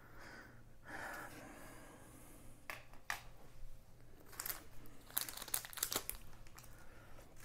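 Small plastic bags of diamond painting drills crinkling and rustling as they are handled, in scattered crackles that come thickest about two-thirds of the way through.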